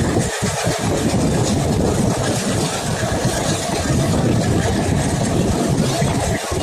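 ALCO diesel locomotive hauling an express train, heard from aboard the moving train: a loud, steady mix of low engine rumble and running noise, without a break.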